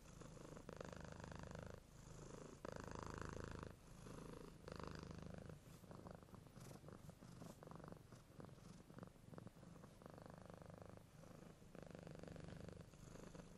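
Domestic cat purring faintly while being petted, in pulses about one to two seconds long with short breaks between them as it breathes.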